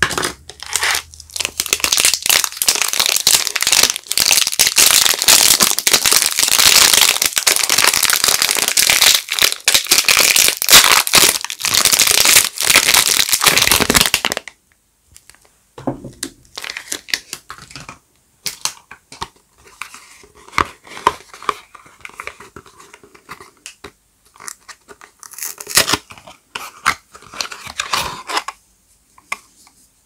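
Plastic wrapper of a Teo soap bar being torn open and crinkled: loud, dense crinkling for about the first fourteen seconds. It stops abruptly and gives way to quieter, scattered rustles and light taps as a cardboard soap box is opened and the bar unwrapped.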